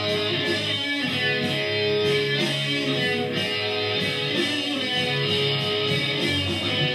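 Rock music led by electric guitar: an instrumental passage with no singing.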